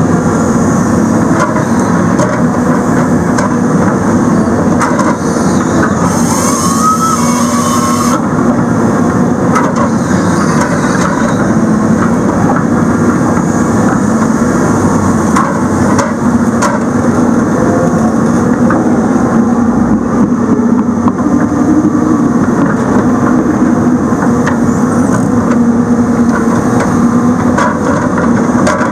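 Heavy machine's diesel engine running steadily under hydraulic load as a Rotobec grapple saw cuts through a stump and then grips and moves the cut pieces, with a few sharp knocks of wood against metal.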